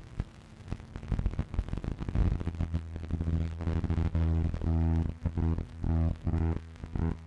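Electronic show soundtrack: crackling static-like noise, then a low buzzing hum that pulses on and off in a steady rhythm, about two pulses a second.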